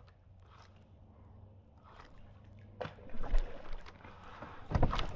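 Water sloshing and splashing with scattered knocks, faint at first, then louder from about three seconds in, with the loudest burst near the end.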